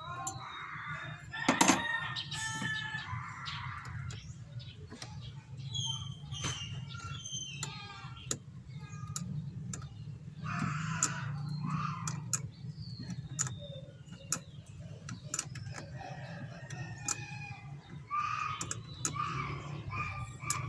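Chickens clucking and a rooster crowing, with scattered sharp clicks and knocks over a steady low hum.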